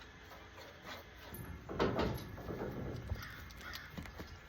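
A harsh animal call about two seconds in, followed by fainter short calls.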